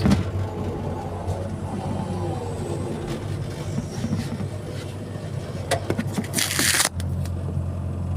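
Excavator's diesel engine running steadily, with scattered clicks and knocks. About six and a half seconds in, a loud rushing noise lasts about half a second, and the engine hum is stronger after it.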